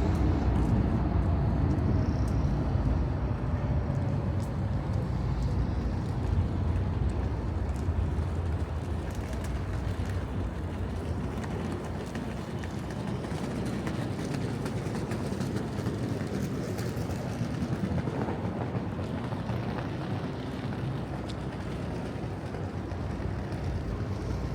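Low, steady rumble of passing vehicles in a city street, easing off a little midway and growing again near the end.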